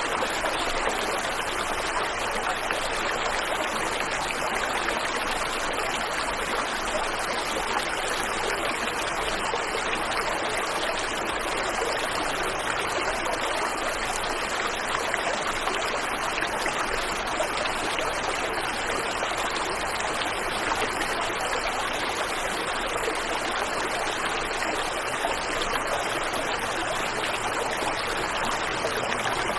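Waterfall and river water flowing, a steady, even rush with no breaks or changes.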